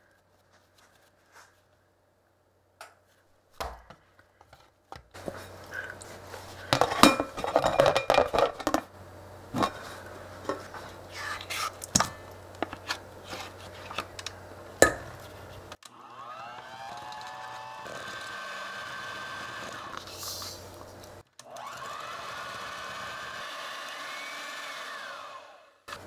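A silicone spatula scraping and tapping cream cheese out of its tub into a stainless steel bowl, with sharp clinks against the metal. Then an electric hand mixer runs twice for about five seconds each, its whir rising in pitch as it spins up, beating the cream cheese smooth.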